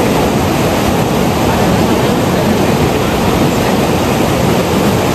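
Fast mountain river rushing over rocks and rapids: a loud, steady wash of white-water noise.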